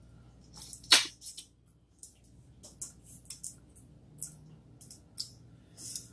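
Crab leg shells being snapped and picked apart by hand, with the meat eaten: scattered short clicks and cracks, the loudest about a second in.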